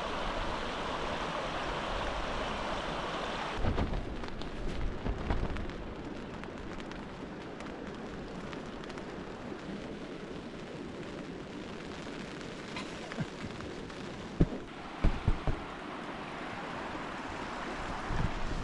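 Steady rush of a rocky mountain stream. From about four seconds in, low thumps and rumbles of wind buffeting the microphone break in, the sharpest a few seconds before the end.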